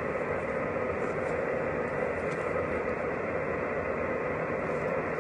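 Xiegu G90 HF transceiver receiving upper sideband on the 10-meter band: a steady hiss of band static from its speaker, with no station on the frequency and nothing above the narrow sideband receive filter.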